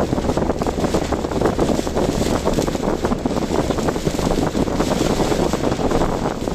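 Typhoon wind buffeting the microphone over a car's driving noise: a steady rushing noise with a constant fine flutter.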